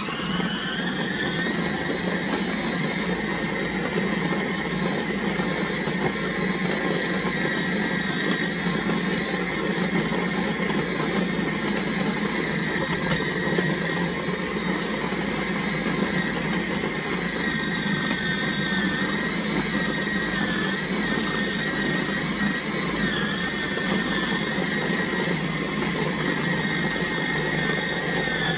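KitchenAid 13-cup food processor running continuously to mix pie crust dough, its motor whine rising as it spins up at the start and then holding steady. The pitch dips briefly twice about two-thirds of the way through.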